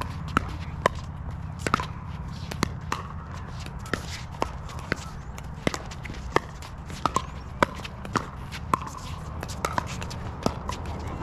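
Pickleball paddles hitting a plastic pickleball: sharp pops, about two a second in an uneven rally rhythm, some louder and some fainter, over a steady low rumble.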